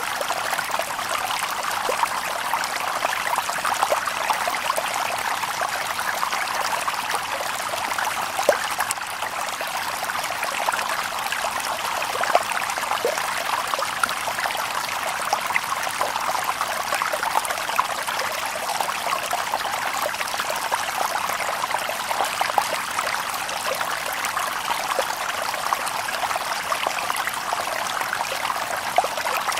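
Shallow stream babbling steadily over stones, a dense patter of small splashes and trickles with no birds.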